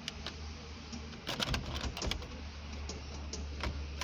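Light clicks and taps from handling, a few close together a little over a second in and more later, over a steady low hum.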